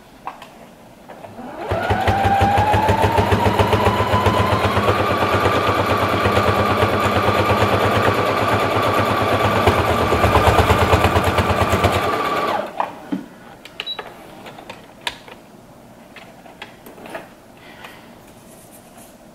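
Household electric sewing machine stitching for about ten seconds, a rapid, even needle clatter under a motor whine that rises as it gets up to speed and then holds steady. After it stops, a few small clicks and rustles of handling.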